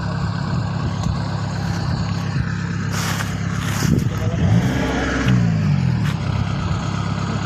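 Farm machinery engine running steadily during corn harvesting. Its pitch rises and then falls a little past halfway through, with a short burst of hiss just before.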